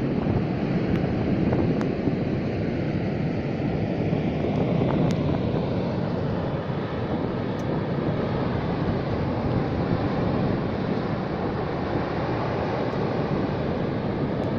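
Water rushing out of a dam's outlet at its base and throwing up a cloud of spray: a steady, even rushing noise.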